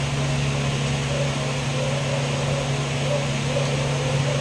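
Electric fan running with a steady low hum and whir.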